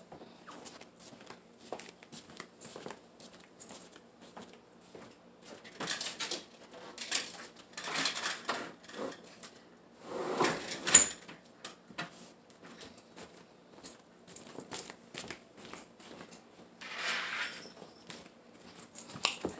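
Off-camera household movement: scattered light knocks and bumps, with a longer scraping or sliding sound about ten seconds in and another near seventeen seconds, as a window is shut in another part of the room.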